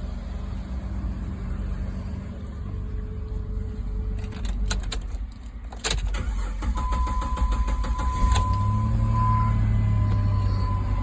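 Car engine running on a replacement used battery after a no-crank, no-start caused by a dead battery, with a short run of clicks and a sharp knock about six seconds in. After that the engine is louder and a steady high electronic warning chime sounds from the car.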